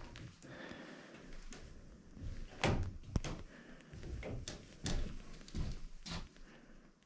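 Footsteps and knocks on old wooden floorboards: a few separate, irregular thuds, the loudest about a third of the way in.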